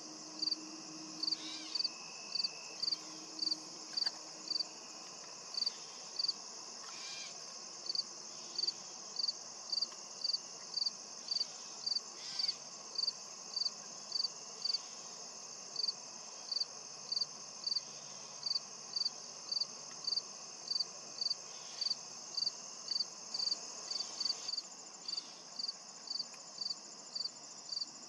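Insects in a field: one chirping in a steady rhythm, a little under two short high chirps a second, over a continuous high-pitched insect drone.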